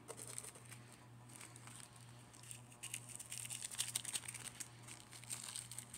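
Small plastic bags of diamond-painting drills being handled: faint crinkling of the plastic with small scattered clicks, busiest in the middle.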